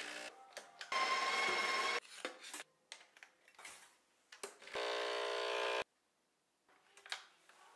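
Breville espresso machine running in two short edited bursts. About a second in comes a second of loud whirring, and a little past the middle a second of steady buzzing from the pump. Each stops suddenly, with light clinks of cup and glass between them.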